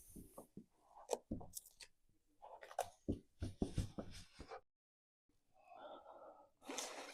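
Faint, irregular scraping and rustling strokes of a large vinyl decal being pressed down onto a Lexan panel, with short strokes. The sound cuts out for a moment a little after midway.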